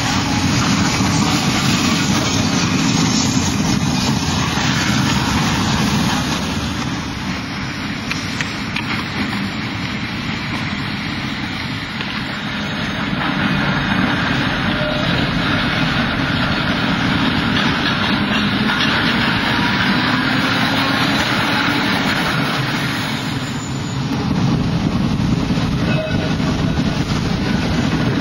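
Tram running on street rails: a continuous rumble of wheels and motor that eases off twice and builds again.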